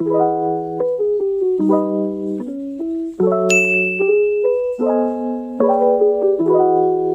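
Background music: keyboard chords in an even, changing progression, with a single high bell-like ding ringing out about three and a half seconds in.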